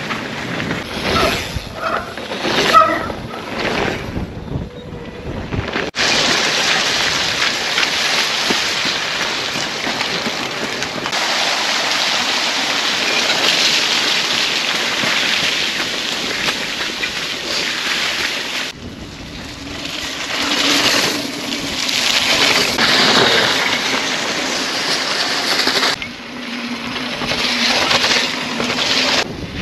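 Wind rushing over the microphone together with mountain-bike tyres running over a wet, muddy trail. The sound changes abruptly several times, with a few short sharp knocks in the first seconds.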